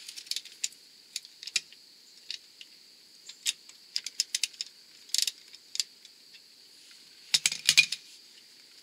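Ratchet wrench clicking in short irregular runs and metal clinks as the bolts of a Ford F-350's front brake caliper are worked loose, with a louder clatter of metal near the end.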